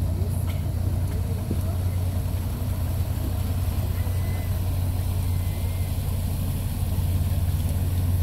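A lobster boat's engine running with a steady low drone as the boat motors past at close range.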